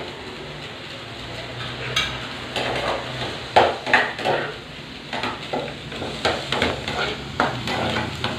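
Chopped onion, tomato and bell pepper sautéing and sizzling in a small frying pan, with a metal spoon stirring and scraping against the pan in irregular knocks.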